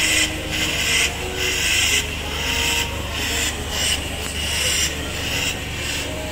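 Liquid nitrogen spurting from a cryogenic dewar's valve into a bowl of snack, hissing in uneven sputtering spurts one or two a second, over a steady low hum.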